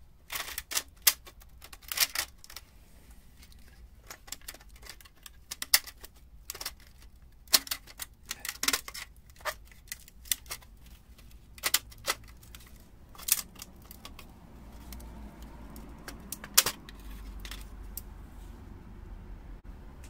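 Irregular sharp metallic clicks and clinks, several in quick clusters, from a thin steel exhaust manifold gasket being handled against the exhaust studs on the cylinder head.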